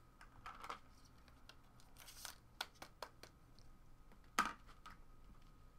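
Faint rustling, crinkling and scattered light clicks of trading cards and their packaging being handled, with one sharper click about four and a half seconds in.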